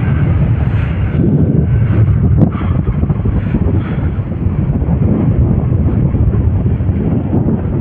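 Hero XPulse 200 4V motorcycle's single-cylinder engine running steadily while riding, mixed with wind buffeting the microphone.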